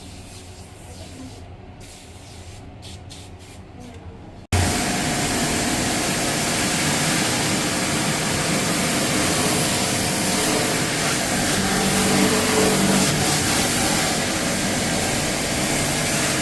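High-pressure water jet spraying, as used to wash an air conditioner: a loud, steady hiss that starts abruptly about four and a half seconds in. Before that there is only a quieter low hum with a few clicks.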